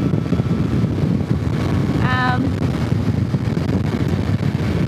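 Steady wind rush and road noise on a helmet microphone on a motorcycle riding at speed, heaviest in the low end.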